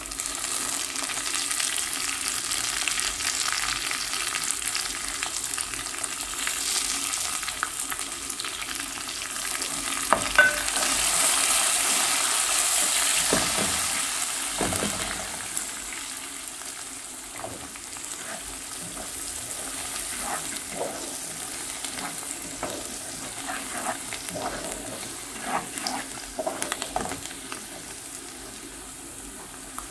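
Onions, garlic paste and coriander stems sizzling in hot oil in a metal pot, with a wooden spoon stirring and scraping against the pot. The sizzle swells about ten seconds in, and the stirring strokes come thicker in the second half.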